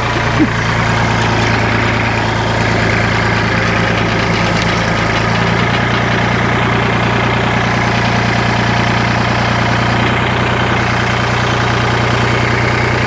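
A heavy engine running steadily at an even speed, with a short knock about half a second in.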